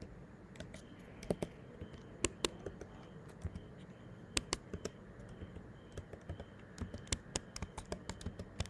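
Typing on a computer keyboard: irregular sharp key clicks, some louder than others.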